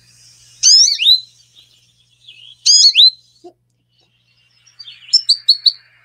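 Recorded American goldfinch calls played back: two sweeping, high-pitched whistled phrases about two seconds apart. Near the end comes a quick run of short twittering notes, about five a second.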